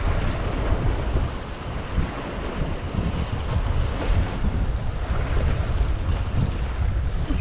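Wind buffeting the microphone in uneven gusts over a steady rush of sea and surf.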